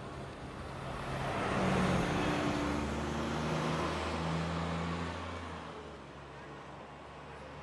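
A motor vehicle driving past on the street, its engine and tyre noise swelling about a second in, loudest around two seconds, then fading away by about six seconds, the engine note stepping in pitch as it goes.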